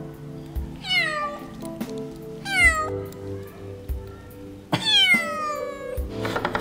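Kitten meowing three times, high-pitched calls that each fall in pitch, over background music with a steady beat.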